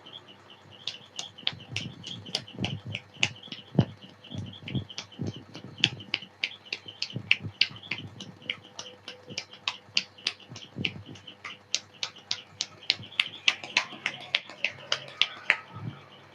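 A barber's hands working percussively on a customer's head and shoulders during a massage: a rapid, irregular run of sharp slaps and clicks, about three or four a second, mixed with dull thumps of palm strikes.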